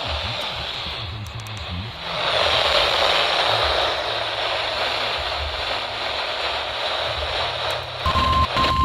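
Weather radio receiver hissing with static between broadcast messages, the hiss growing louder about two seconds in. Two short beeps near the end.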